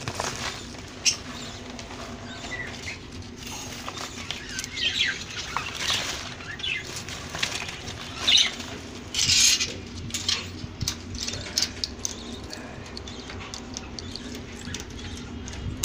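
Scattered rustling, scratching and light clicks of guinea pigs moving about in their seed-strewn cage bedding, mixed with a plastic feed packet being handled, loudest in a few bursts about halfway through.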